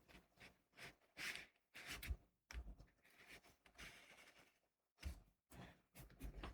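Near silence, with faint short soft rustles coming every half second or so.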